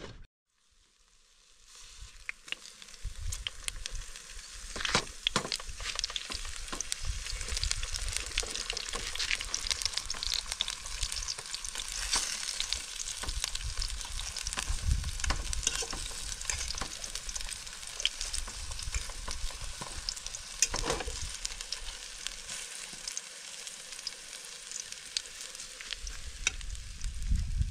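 Peeled eggplant slices sizzling in hot oil in a frying pan, a dense steady hiss full of small crackles and pops, with a low rumble underneath. It fades in over the first second or two.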